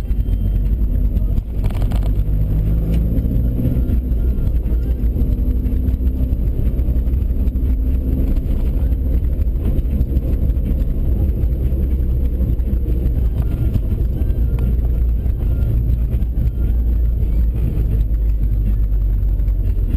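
Car engine and road noise heard from inside the cabin while driving, a steady low rumble. The engine note rises a couple of times as the car picks up speed, with a short knock about two seconds in.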